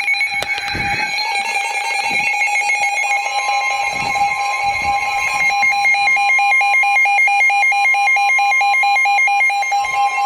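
Emergency Alert System warning tone: a loud electronic alarm beeping in a rapid, even pulse, with a second steady tone joining about three seconds in.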